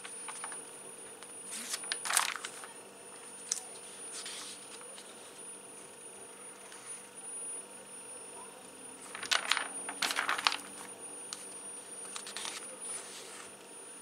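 Glossy catalogue pages being turned and smoothed flat, rustling in several bursts, loudest about two seconds in and again around nine to ten seconds in. A steady high-pitched whine runs underneath: a recording glitch.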